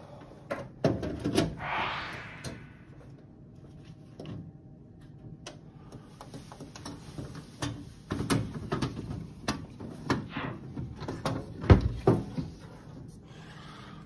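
A run of knocks and clicks from hands working on a Potterton Kingfisher MF gas boiler's casing and thermostat knob, with a brief rustle about two seconds in and the loudest knock near the end.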